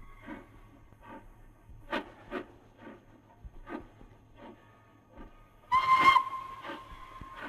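British steam locomotive working slowly, its exhaust beats coming unevenly about every half second to second, with a short blast on its steam whistle about six seconds in.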